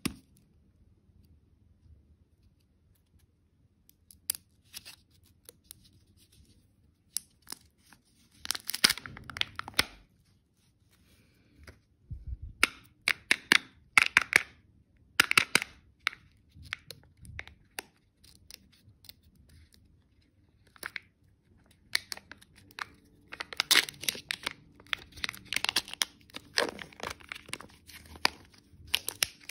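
Kinder Joy egg being unwrapped by hand: its foil wrapper crinkling and tearing in short bursts with quiet gaps, then the foil seal peeling off the plastic egg half.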